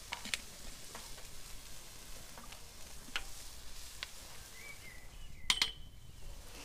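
Wood campfire crackling under a grill, with sparse sharp pops about once a second over a faint sizzling hiss. The loudest is a pair of snaps about five and a half seconds in.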